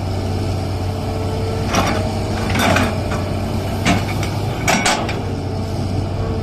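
Hydraulic excavator's diesel engine running steadily, with several short knocks and scrapes from the bucket and boom as it digs, about a second apart.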